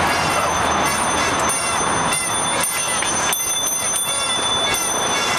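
Steady city street noise of traffic along a road under an elevated highway, with faint voices of passers-by now and then.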